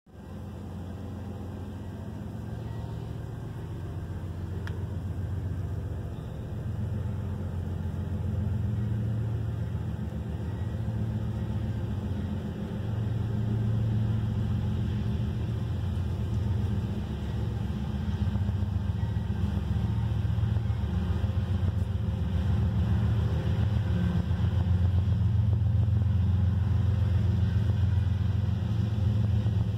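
Steady low rumble that slowly grows louder.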